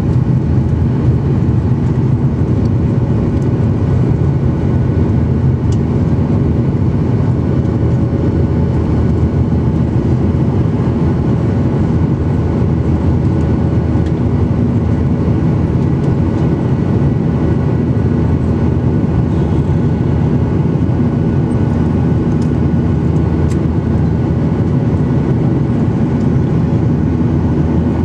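Steady cabin noise of a Boeing 737-900ER climbing after takeoff, heard inside the cabin: a low, even rumble of its CFM56-7B27E turbofan engines and rushing air, with faint steady tones above it.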